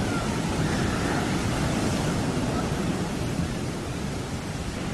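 Sea waves surging and breaking in a steady, heavy rush of surf, with wind buffeting the microphone.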